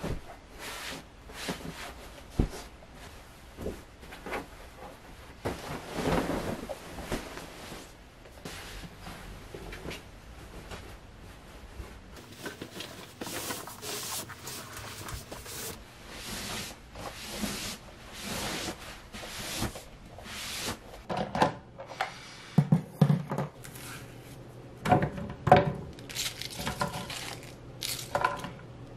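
Bedding being tidied by hand: a duvet and sheets rustling and flapping as they are shaken out and laid flat, pillows set down, and the sheet smoothed with the palms. In the last several seconds, cabbage pieces dropped into a plastic blender jar, with light knocks and thunks.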